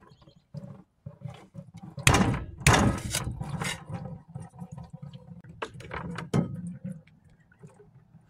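A wet cake of copper sulfate crystals being worked out of a plastic beaker into a towel-lined bucket: rough scraping and crunching of crystals against the beaker, loudest from about two to four seconds in. A few shorter scrapes and knocks follow a couple of seconds later.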